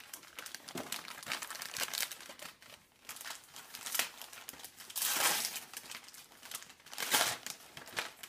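Wrapping paper crinkling and tearing as a gift is unwrapped by hand, with louder rips about five seconds in and again near the end.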